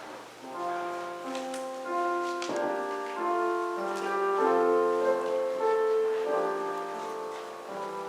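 Church organ playing an instrumental introduction in slow, sustained chords, growing louder over the first couple of seconds.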